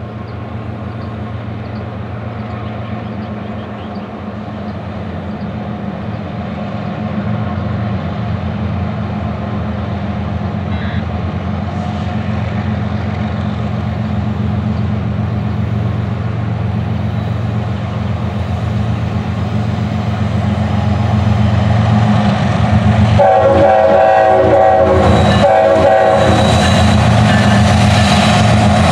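Norfolk Southern double-stack intermodal freight train approaching behind two diesel locomotives, their engines a steady drone that grows louder as they near. The locomotive horn sounds twice near the end, a long blast then a shorter one.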